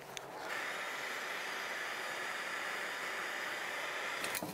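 Handheld gas torch flame hissing steadily as it heats a corroded exhaust stud in an aluminium cylinder head, loosening the corrosion before the stud is removed. It starts about half a second in and cuts off near the end.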